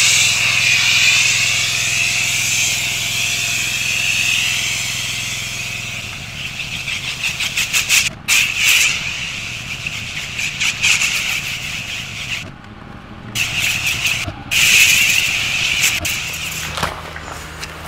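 Pressure washer spraying cleaning solution through an X-Jet chemical nozzle: a loud, steady hiss of spray over the machine's low running hum. The spray cuts off briefly a few times in the second half as the trigger is let go.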